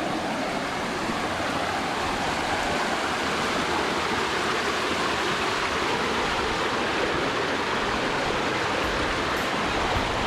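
Steady rushing of a waterfall, an even, unbroken wash of falling water.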